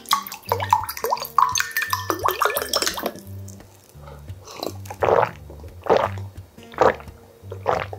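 Water poured from a plastic bottle into a tall glass, gurgling and rising in pitch as the glass fills, then loud gulping swallows about once a second as it is drunk, over background music with a steady beat.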